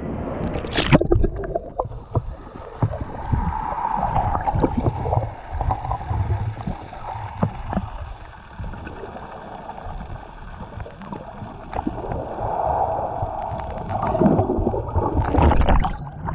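Sea water heard from a camera held underwater: a muffled, low gurgling rumble of moving water. A splash about a second in as it goes under, and brighter splashing near the end as it breaks the surface.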